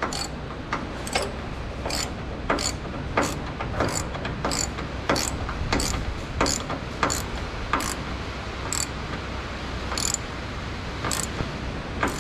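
Hand ratchet wrench clicking in short back-strokes, roughly two clicks a second with uneven spacing, while a bolt is turned on the wagon's floor. A steady low hum runs under it.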